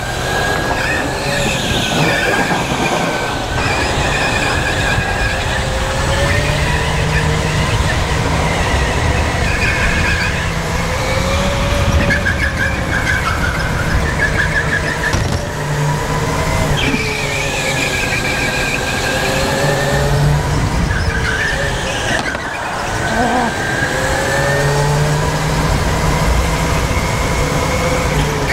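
Racing kart at speed, heard from the driver's seat: its motor note climbs and falls again and again through the corners, with the tyres squealing.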